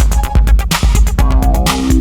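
Old-school electro / Miami bass dance music: a drum machine beat over deep, booming bass, with a synth line coming in about halfway through.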